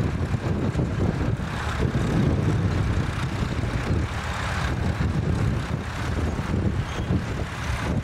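Tractor engines running steadily as a tractor works past pulling a mounted plough.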